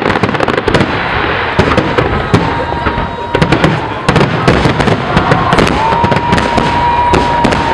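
Fireworks display: dense, rapid bangs and crackling, with a long steady whistle rising out of it past the middle and dipping as it ends.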